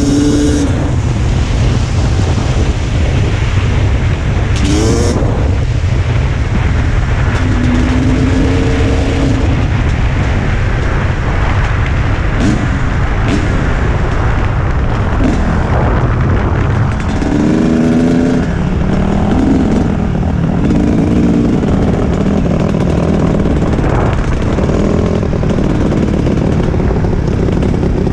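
Dirt bike engine running at riding speed, its pitch rising and falling with the throttle, under heavy wind rumble on the microphone.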